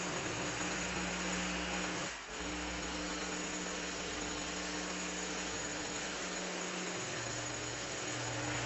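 Steady machine noise, like a small engine running, with a strong hiss and a low hum; it dips briefly about two seconds in.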